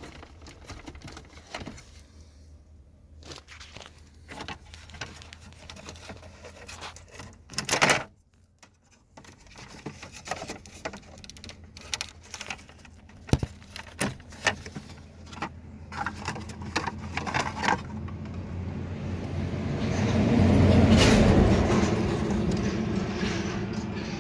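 Clicks, knocks and rattles of plastic dashboard parts and wiring connectors being handled while a car's instrument cluster is worked out of the dash, with one loud knock about eight seconds in. Near the end a low rumble swells up and eases off.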